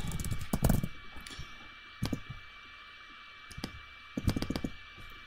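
Computer keyboard keystrokes and mouse clicks: a quick run of taps in the first second, single clicks about two and three and a half seconds in, and another quick run a little after four seconds.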